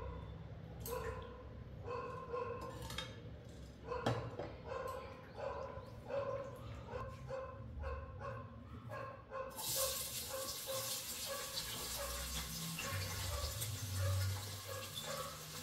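A dog barking repeatedly, short barks coming every half-second or so. About ten seconds in, a loud frying sizzle starts as food goes into hot oil in the pan.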